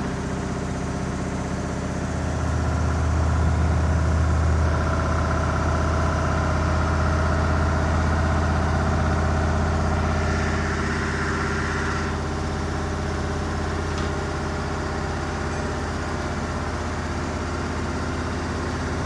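Washing machine drum in its final spin, speeding up to 1100 RPM: a steady motor hum and low drum rumble, loudest a few seconds in, with a higher whine that stops about twelve seconds in.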